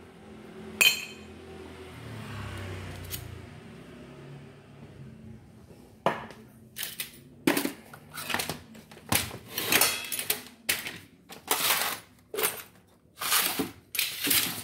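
Metal parts of a rotary hammer drill being handled on a bench: one sharp ringing clink about a second in, then from about six seconds in a run of repeated metal-on-metal knocks and scrapes, one or two a second.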